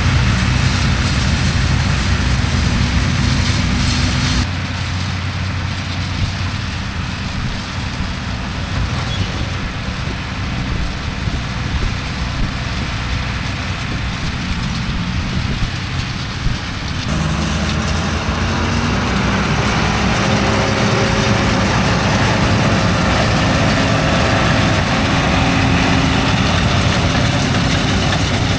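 Farm tractor's diesel engine running steadily. The sound changes abruptly twice: it drops and dulls about four seconds in, and grows louder and brighter again a little past the middle.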